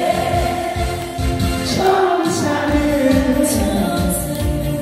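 A singer's voice through a microphone over a karaoke backing track of a Korean song: one long held note, then the next line begins about two seconds in.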